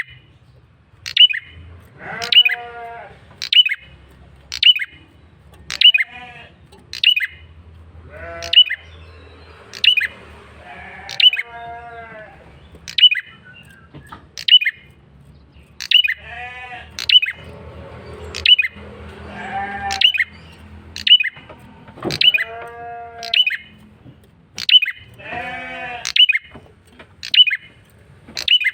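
Male red-headed prenjak (prenjak kepala merah) calling persistently as a lure: a loud, sharp, falling call repeated about every three-quarters of a second. Every few seconds there is a lower, bleating, buzzy call.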